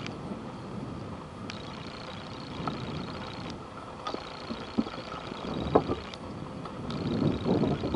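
Steady low outdoor rumble, with a few short knocks about two-thirds of the way in and near the end.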